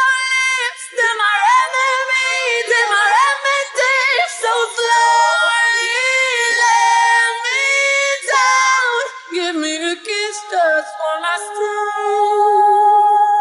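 Unaccompanied high male singing voice, no instruments, running up and down in sliding vocal runs with layered harmony lines. It ends on a long held high note.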